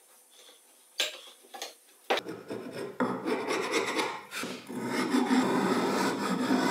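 A wood chisel scraped repeatedly along the edge of glued-up plywood strips, a dry rasping scrape stroke after stroke. A single knock about a second in comes before the scraping starts.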